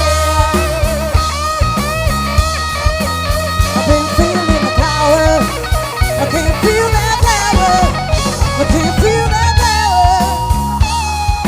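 Live rock band playing an instrumental passage: a bending, wavering electric guitar lead over bass and a steady drum beat.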